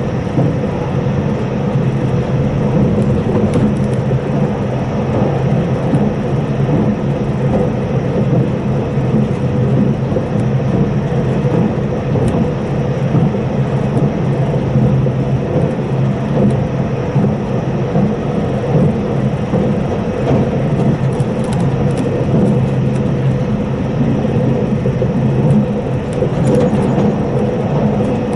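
Cabin noise of a JR Hokkaido Lilac limited express electric train running at speed, heard inside the carriage: a steady rumble of wheels on rail with a low hum and a few faint ticks.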